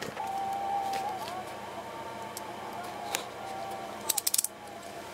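Plarail toy model of a Keikyu 2100 series train running, its built-in sound unit playing the GTO-VVVF inverter sound as a steady tone with small pitch bends. There are a few clicks, and a quick clatter about four seconds in.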